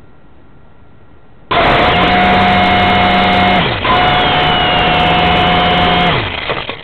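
Blade 180 QX quadcopter's motors spinning up loud while it lies crashed in dry leaves, with sharp ticks mixed in. They start suddenly about a second and a half in, drop and pick up again near the middle, then wind down near the end.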